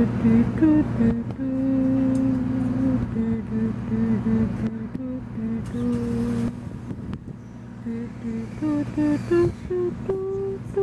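A person humming a slow tune in short notes that step up and down in pitch, over a steady low drone.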